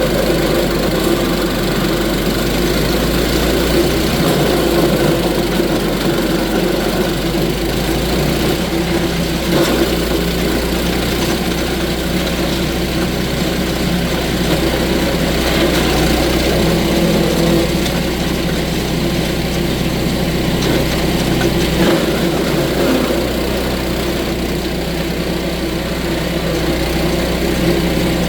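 Engine of a belt-driven wood chipper running steadily, with a few brief knocks along the way.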